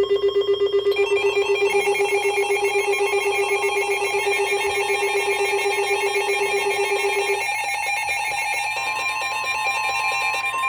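Several weather alert radios alarming at once, a dense jumble of rapidly pulsing beep tones at different pitches. Near the end a steady single-pitch tone comes in: the NOAA Weather Radio warning alarm tone, which signals that a warning is about to be read.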